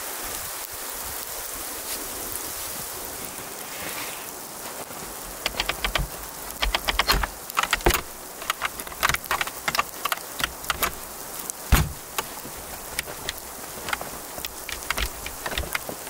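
Steady patter of falling sleet, then from about five seconds in a run of quick clicks and knocks as the log hut's wooden door and its metal hasp are handled, with a louder knock near the middle.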